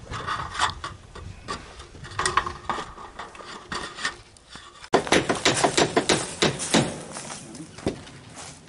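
Sheet-metal roof trim clanking and tapping as it is handled and fitted. There are scattered knocks at first, then a dense run of rapid metallic rattles and knocks starting about five seconds in.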